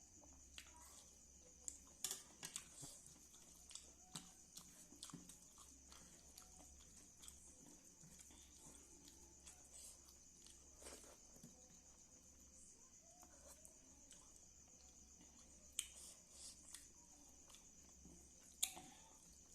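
Faint close-miked eating sounds: a person chewing soft food such as kadhi pakora and rice, with scattered small wet clicks and smacks. A few sharper mouth clicks come about two seconds in and twice near the end, over a steady faint high hiss.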